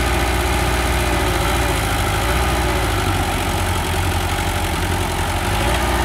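Mitsubishi BD2G small crawler bulldozer's diesel engine running steadily with a low, evenly pulsing rumble as the machine works in deep mud.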